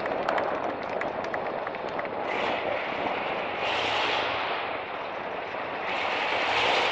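Off-road trial truck's engine revving in three surges over a steady rushing rumble as it works across a steep gravel slope.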